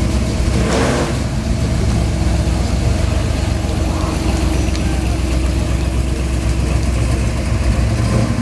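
Engines of classic cars, a Chevrolet Chevelle SS muscle car and a 1950s Chevrolet pickup, idling with a steady low rumble as they roll slowly past. A short burst of noise comes about a second in.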